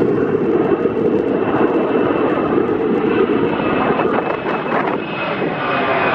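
Boeing 767 twin-engine jet airliner climbing out low overhead just after takeoff, its engines giving a loud steady roar with a faint high whine on top. The deep part of the roar eases about four seconds in as the higher part of the sound grows.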